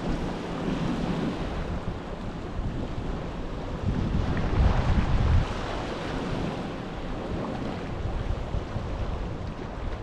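Sea waves washing against the shore, with wind buffeting the microphone; a louder low rumble swells for about a second and a half near the middle.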